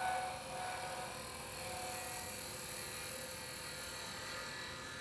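A small wood lathe runs with a steady hum as a gouge takes light cuts on a pen blank spinning on a mandrel. Over the hum comes the hiss of wood shavings peeling off.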